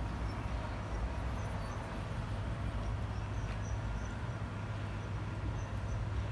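Steady low rumble of city street traffic, with faint short high chirps scattered through it.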